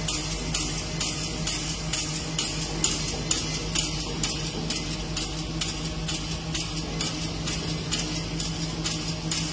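Multi-needle quilting machine stitching, its needle bar making a regular clatter of a little over two strokes a second over a steady motor hum.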